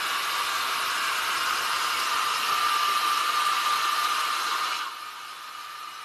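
Handheld hair dryer running, a steady rush of air with a thin whine, blown over wet poured acrylic paint. It drops clearly quieter about five seconds in.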